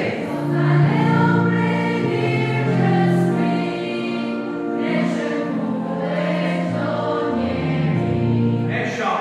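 Church choir singing a hymn, several voices holding long notes together.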